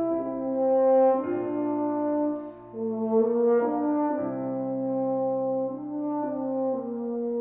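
French horn playing a slow melody of long held notes, with a short break for breath about two and a half seconds in.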